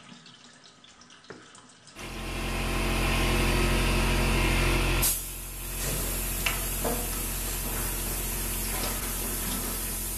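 A thin stream of water trickles faintly from a kitchen cold tap for about two seconds. Then a portable electric air compressor comes in abruptly and runs steadily with a low hum, dipping briefly about five seconds in.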